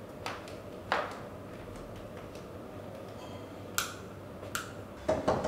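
Light steps and a few sharp clicks over faint room tone; two clicks come as a wall doorbell switch is pressed about four seconds in, and a rapid run of louder strokes from the bell begins just before the end.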